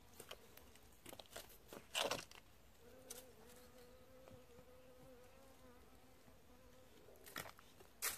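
A bee buzzing close by, a steady hum that starts about three seconds in and holds for about four seconds. Short scuffs and crackles of footsteps on paving come around it, the loudest about two seconds in.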